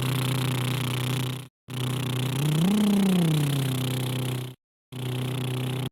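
Cartoon airplane engine sound effect: a steady engine drone over a hiss whose pitch rises and falls once midway. It cuts out briefly twice.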